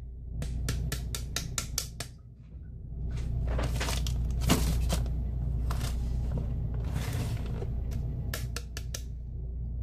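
Clear plastic bag and plastic cup being handled: a run of quick crinkling clicks, then spells of rustling and more clicks near the end, over a steady low hum.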